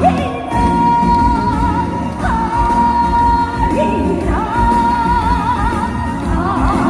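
A woman singing a trot song live with band accompaniment, holding long notes.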